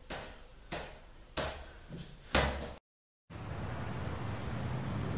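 Volleyball being volleyed overhead with the fingertips: five sharp slaps about two-thirds of a second apart, the last one loudest. The sound then cuts out dead and a steady low hiss follows.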